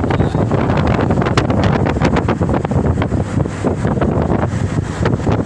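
Wind buffeting the microphone at an open window of a moving car, over steady road and engine rumble.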